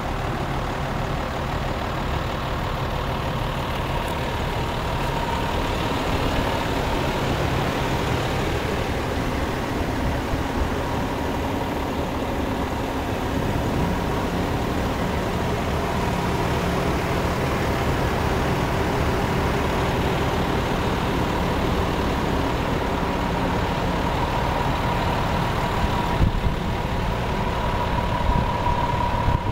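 Heavy diesel truck engine idling steadily, with a thin steady whine above the rumble that grows louder near the end.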